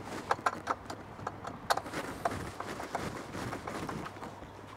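Hand screwdriver turning a fixing screw inside the plastic case of a wall-mounted EV charger: irregular light clicks and taps, a few a second, the sharpest about a second and a half in.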